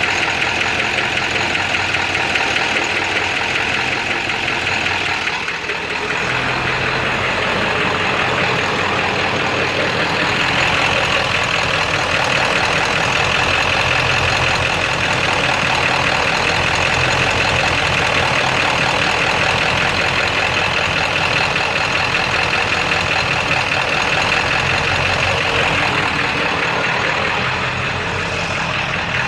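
7.3-litre diesel V8 running steadily with a knock, which the owner says sounds like a rod knocking; the engine runs rough with no power. The sound dips briefly about six seconds in, then carries on.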